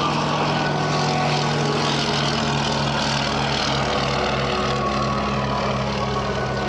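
Piston-engined WWII warbird propeller aircraft flying over with a steady engine drone. For a few seconds midway the drone throbs with a pulsing beat, as from several engines running slightly out of step.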